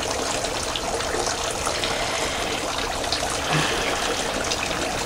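Tiered garden fountain splashing and trickling steadily.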